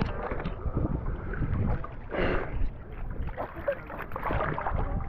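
Seawater sloshing and splashing around a camera held at the surface, with wind rumbling on the microphone. A louder splash comes about two seconds in.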